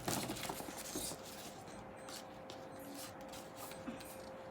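Packaging rustling and rubbing as it is handled, with louder crinkles in the first second and softer scattered scrapes after. A faint steady hum runs underneath.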